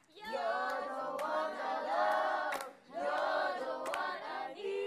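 A small group of young men and women singing together without accompaniment, in two long phrases with a brief break about three seconds in.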